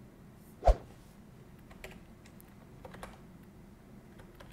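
Computer keyboard typed on in a few scattered, faint taps, with one sharp, much louder click about three-quarters of a second in.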